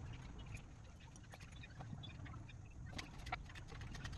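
Faint rustling and small snaps of fresh leafy greens being plucked from their stems by hand, with a couple of slightly louder clicks about three seconds in, over a low steady rumble.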